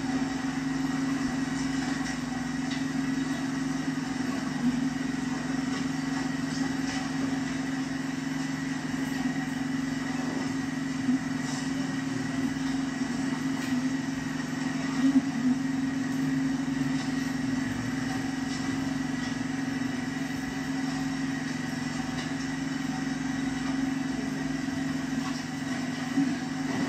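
A small engine running steadily at constant speed: a low, even hum with a faint high whine over it, and a few light knocks.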